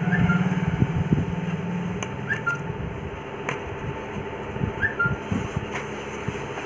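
Soft knocks and handling noise as a new paper speaker cone is set into a 15-inch speaker frame and pressed down onto its glued edge, over a steady background hum. A short two-note chirp sounds three times, about every two and a half seconds.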